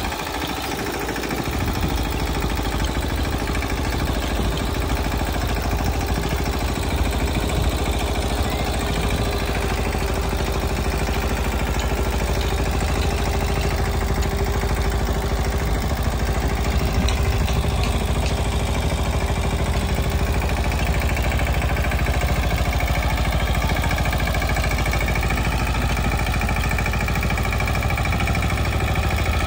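Mahindra Yuvraj 215 NXT mini tractor's single-cylinder diesel engine running steadily under load, driving a rear rotavator that tills the soil.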